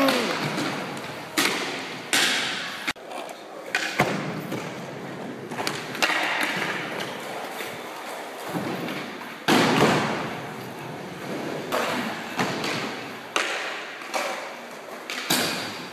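Irregular thumps and knocks, roughly one a second, each fading out quickly.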